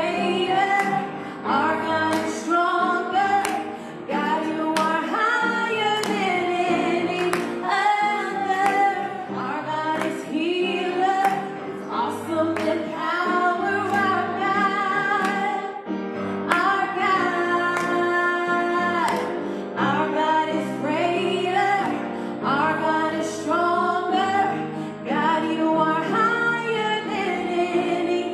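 A woman sings a worship song through a microphone, holding long wavering notes, with keyboard accompaniment.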